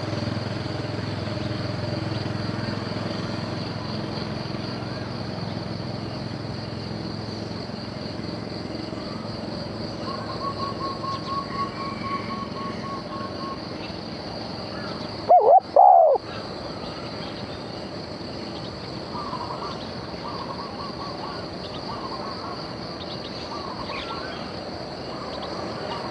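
Outdoor bird-trapping ambience: a steady high insect drone, with a motor hum that fades over the first few seconds. A quick string of bird notes comes about ten seconds in, and a loud, short bird call about fifteen seconds in.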